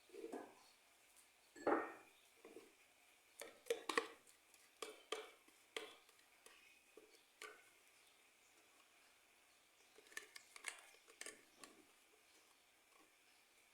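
Faint, scattered clinks, taps and scrapes of kitchen utensils against dishes and a blender jar, about a dozen short knocks spread unevenly.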